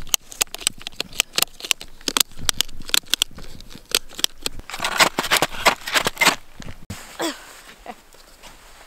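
Snowshoe bindings being done up: quick plastic clicks of ratchet straps and buckles as the straps are pulled tight over a boot, crowding into a dense run of clicking about five to six seconds in.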